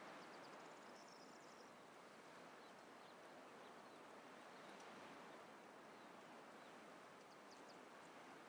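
Near silence: faint outdoor hiss with a few faint high chirps near the start and again near the end.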